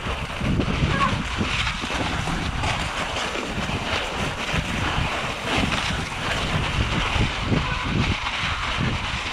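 Mountain bike rolling downhill over snow, with wind buffeting the microphone in a constant gusty rumble and many small crunches and rattles from the tyres and bike over the bumps.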